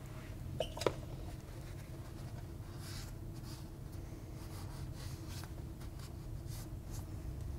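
A rag is rubbed around a car's metal wheel hub, spreading anti-seize, giving faint scratchy wiping strokes. There are two light clicks just under a second in, over a steady low hum.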